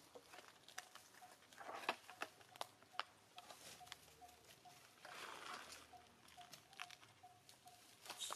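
Faint crackling and rustling of dry leaves and twigs as macaques move about on the ground, with a few sharp clicks about two to three seconds in. A faint short note repeats a couple of times a second in the background.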